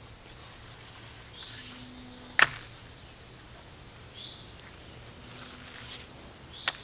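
Cord being lashed around a joint of two wooden sticks: two sharp clicks, about two and a half seconds in and again near the end. Short bird chirps repeat every few seconds behind them.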